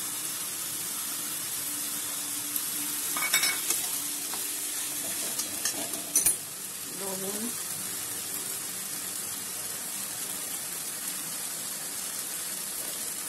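Onions and ginger-garlic-green chili paste sizzling steadily in hot oil in a metal wok, stirred with a steel spatula. A few sharp clinks and scrapes of the spatula against the pan come between about three and six seconds in.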